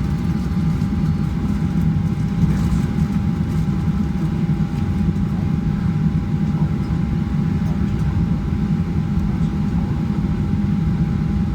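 Steady cabin noise inside a Boeing 737-900 on the ground before takeoff: an even low rumble of air and machinery with a constant mid-pitched whine.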